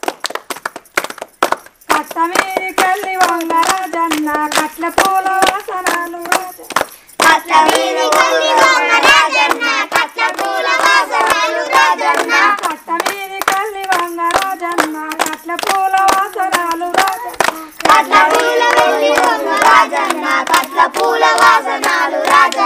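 Children and a woman singing a folk song together while clapping their hands in a steady rhythm. The claps start alone, the voices join about two seconds in, and the singing grows fuller after a short break near the middle.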